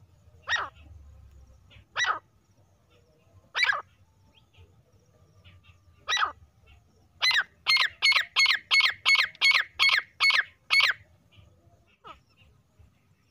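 Female grey francolin calling: short, sharp notes that fall in pitch, first a few single notes a second or two apart, then a quick run of about eleven notes at roughly three a second.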